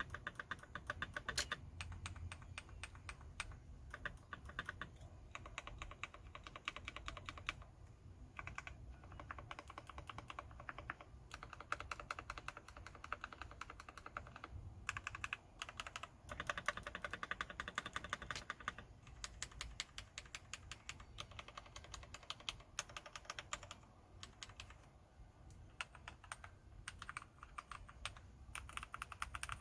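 Typing on a Ninja 87 ARC XD mechanical keyboard with Gateron Yellow linear switches lubed with Super Lube spray: fast runs of keystrokes in bursts, with brief pauses between them.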